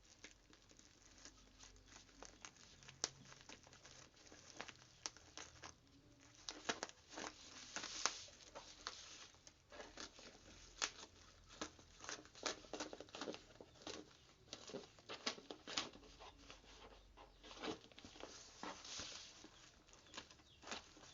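A parcel's wrapping being crinkled and torn open by hand, an irregular run of crackles, rustles and rips that gets busier after the first few seconds.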